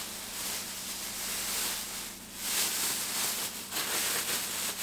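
Clear plastic bag crinkling and rustling in uneven surges as a large compressed plush teddy bear is pulled out of it by hand.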